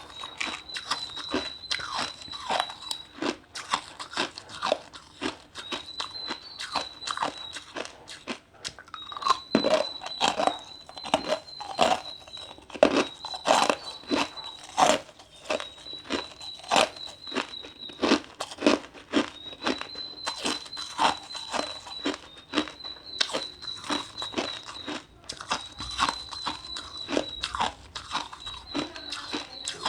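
Ice being bitten and chewed, a dense irregular run of crunches. A high, thin steady tone sounds behind it in stretches of a second or two at a time.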